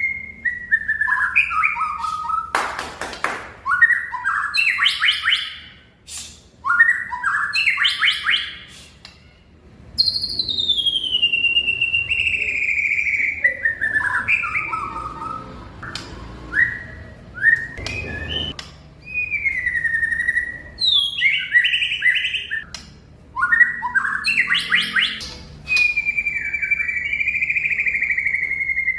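White-rumped shama (murai batu) singing continuously: a varied song of rich whistles, some long and gliding downward, broken by fast chattering runs and a few sharp clicks, with a long held whistle near the end.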